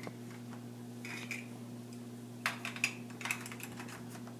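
Small plastic Jenga game blocks clicking against each other as they are handled and stacked: a scatter of light clicks, most of them bunched together a little past the middle.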